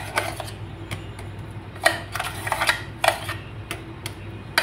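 A spoon scraping thick ground urad dal batter out of a mixer-grinder jar, with several sharp clicks of the spoon knocking against the jar's rim.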